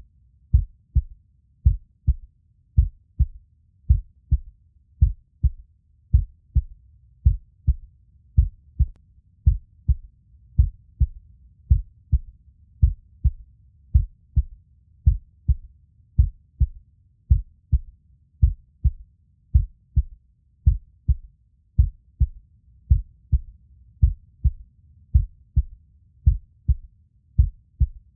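Heartbeat sound: a slow, even rhythm of low, double thumps (lub-dub) with a faint low hum between the beats.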